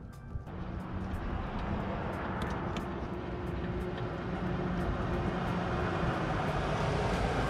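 Distant engine drone setting in about half a second in and slowly growing louder, a steady low hum under a broad rushing noise.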